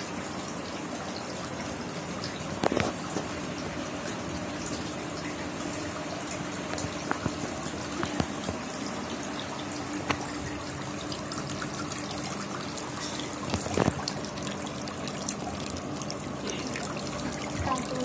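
Water from a small decorative tabletop fountain falling steadily into a shallow metal tray of water, with a faint steady hum underneath. A couple of brief knocks stand out, about three seconds in and again near fourteen seconds.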